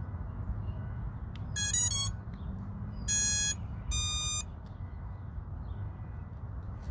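The Emax 2306 brushless motors of an FPV quadcopter playing the ESCs' power-up tones as a fresh battery is plugged in: a quick run of short beeps, then two longer single beeps about a second apart, signalling the ESCs have started and found the flight controller's signal.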